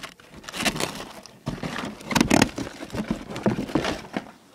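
Packing paper crinkling and rustling in quick repeated bursts as wrapped pieces of wood are dug out of a shipping box; it stops near the end.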